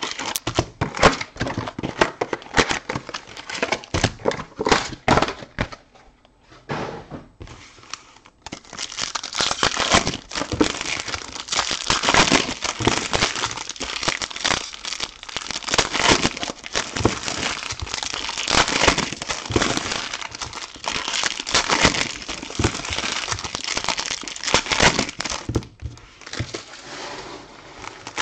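Shiny plastic trading card pack wrappers being torn open and crumpled by hand, a dense, irregular crinkling that eases off briefly about six seconds in and then picks up again.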